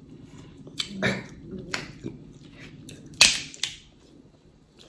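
Snow crab leg shells being cracked and snapped apart by hand: several sharp cracks, the loudest about three seconds in, with softer smacking from chewing the crab meat between them.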